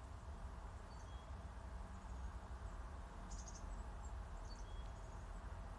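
Faint outdoor ambience: scattered short, high chirps of distant small birds, a quick cluster about three and a half seconds in, over a steady low rumble.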